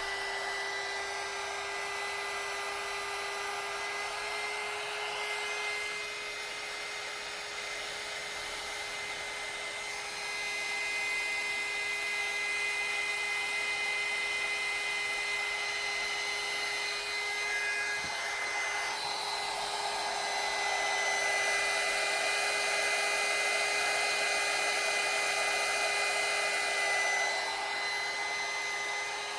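Electric heat gun blowing hot air onto heat-shrink tubing to shrink it, a steady fan whir with a constant hum. It dips briefly, grows louder from about ten seconds in and again from about twenty-one seconds, then drops a couple of seconds before the end.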